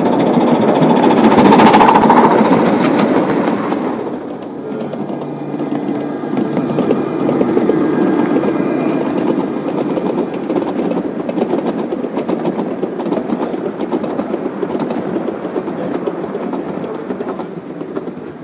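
Gauge 1 model trains running on the rails: a model steam locomotive passes right by, its wheels rumbling and clicking over the track, loudest about two seconds in. After a dip the wheels of a model diesel and its coaches keep up a steady rumble.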